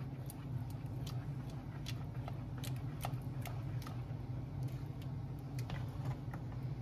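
Thick oatmeal being stirred with a metal spoon in a stainless steel pot: scattered soft clicks and plops, irregular, over a steady low hum.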